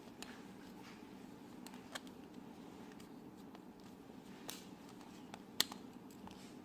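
A few faint sharp clicks and taps of small metal carburetor parts and a tool being handled during reassembly, the loudest about two-thirds of the way in, over a steady low hum.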